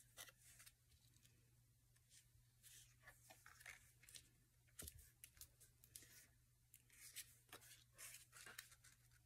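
Near silence with faint, scattered rustles and light ticks of paper being handled, over a low steady hum.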